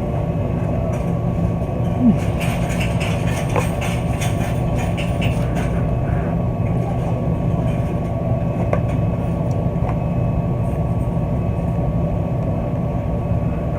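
Steady low mechanical hum with a faint high whine, a few faint clicks over it.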